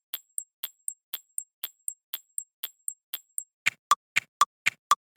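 Modern clock ticking sound effect loop: evenly spaced, crisp ticks at about four a second, thin and high-pitched at first. About three and a half seconds in it changes to a louder, lower-pitched tick at the same pace.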